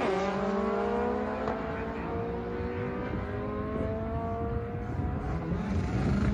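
Drag cars accelerating hard away down the strip, the turbocharged Honda Prelude among them: the engine note drops at a gear change right at the start, then climbs slowly as the car pulls away, growing fainter after about five seconds.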